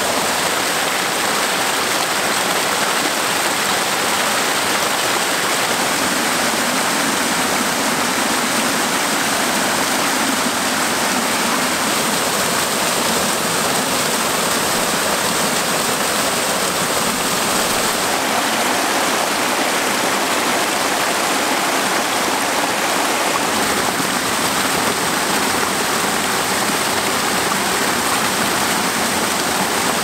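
Fast mountain river rushing and splashing over rocks and small falls: a loud, steady rush, more hiss than deep rumble.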